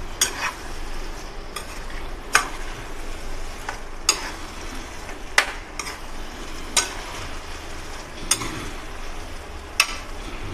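A spatula stirring raw banana slices through thick masala gravy in a kadhai, knocking sharply against the pan about every second or so over a steady sizzle of frying.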